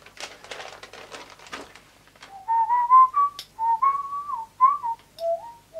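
A man whistling a tune to himself, a string of short stepped notes, starting about two seconds in. Before that, faint rustling and clicking of plastic kit parts being handled.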